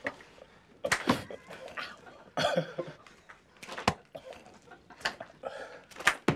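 Hard-boiled eggs fired from a slingshot smacking into a person wearing a plastic face shield, about five sharp hits roughly a second apart, with stifled snickering between them.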